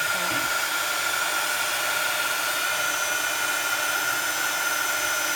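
Embossing heat tool running steadily: a constant rush of blown air with a steady whine through it, as the tool warms up before melting embossing powder.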